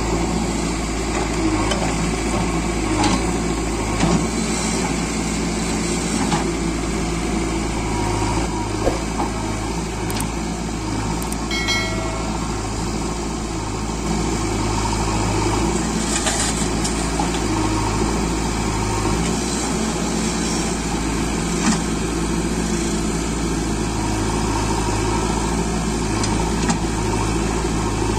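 Diesel engines of a JCB 3DX backhoe loader and a Massey Ferguson tractor running steadily while the backhoe digs and loads soil, with a few light knocks.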